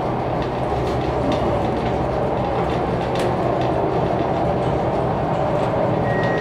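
Schindler hydraulic elevator car travelling between floors: a steady mechanical rumble with a low hum.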